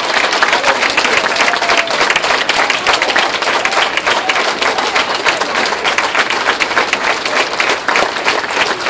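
A congregation applauding: many hands clapping steadily, with a few faint voices mixed in.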